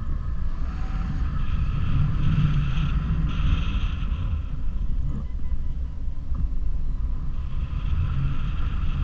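Wind from flying under a paraglider buffeting the microphone: a steady low rumble. Patches of higher hiss come and go, about a second in and again near the end.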